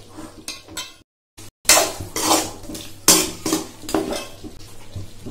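Metal ladle scraping and clinking against the sides of a metal cooking pot as a thick chicken curry is stirred: several separate scrapes, with a brief total dropout about a second in.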